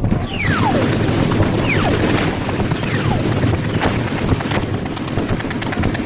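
Dense, continuous automatic gunfire with rapid cracks. Several whistles fall in pitch over it, each lasting about half a second.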